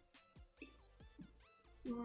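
Quiet background music with a repeating melodic pattern.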